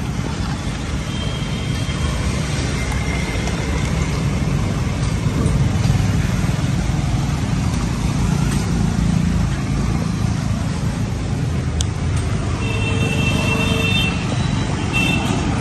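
A Mahindra Scorpio SUV driving slowly past, its engine and tyres giving a steady low rumble over roadside traffic noise. A short high tone sounds twice near the end.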